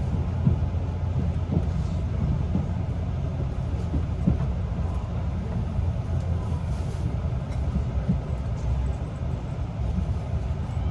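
Electric train running: a steady low rumble with a few faint knocks.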